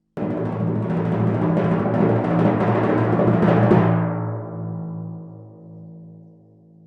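Timpani roll: starts suddenly, grows a little louder for about four seconds, then stops, and the drum rings on and fades away.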